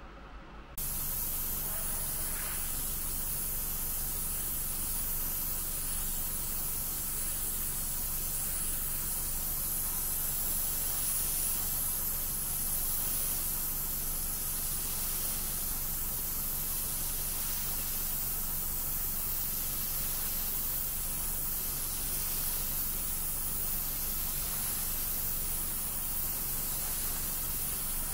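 Gravity-feed airbrush spraying: a steady hiss of air that starts abruptly about a second in and holds even, with a faint low steady hum beneath it.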